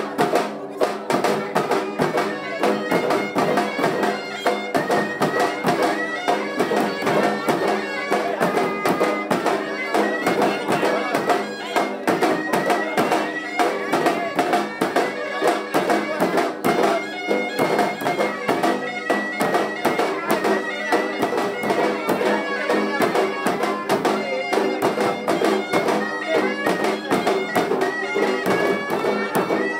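Live traditional processional music: a shrill reed pipe plays a melody over steady held tones, driven by fast, continuous drumming.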